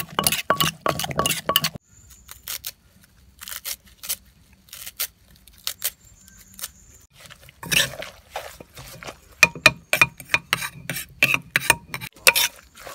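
A metal spoon and wooden pestle working a chilli paste in a clay mortar: quick runs of clinks and knocks as the spoon scrapes and strikes the mortar's sides, about five a second. The clinking drops to a few faint taps for several seconds in the middle, then picks up again.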